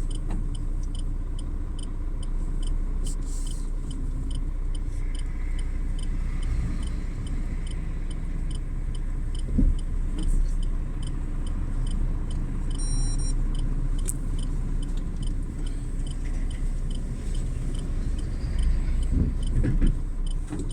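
Truck engine idling with a steady low rumble, heard from inside the cab, with a light regular ticking over it and a short high beep about 13 seconds in.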